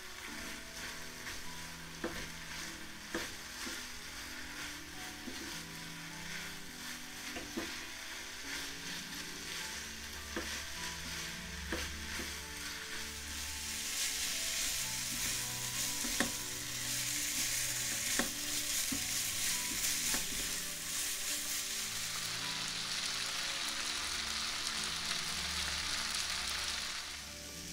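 Spaghetti and vegetables sizzling in a nonstick pan while a spatula stirs and tosses them, with occasional knocks of the spatula against the pan. The sizzle gets louder about halfway through and cuts off suddenly near the end.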